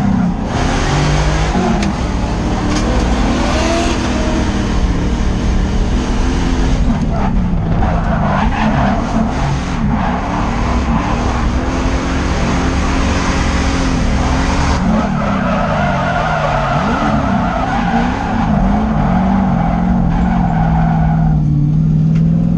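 Drift car engine revving up and down with the throttle while the tyres skid. In the last third a long tyre screech holds steady, then cuts off shortly before the end.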